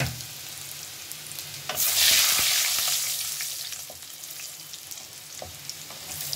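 Garlic, cumin and whole dried red chillies crackling and sizzling in hot oil and ghee in a kadhai, stirred with a wooden spatula. A loud burst of sizzling comes about two seconds in and fades away over the next two seconds.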